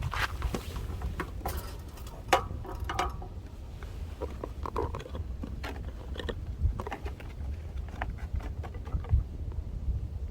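Wind buffeting the microphone as a low rumble, with many scattered light clicks and knocks, the loudest about two seconds in and near nine seconds.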